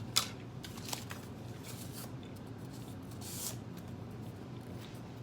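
Clicks and scrapes of an eating utensil against a takeout food container, the sharpest click just after the start, a second about a second in, and a short scraping rustle a little past the middle.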